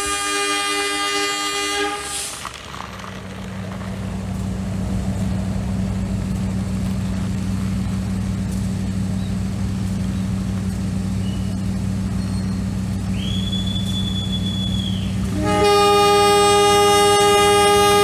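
Battery-powered toy train, a model of an Indonesian CC 206 locomotive, running on plastic track with a steady motor hum. Its built-in speaker sounds a long electronic train horn for the first two seconds and again, louder, from about two and a half seconds before the end.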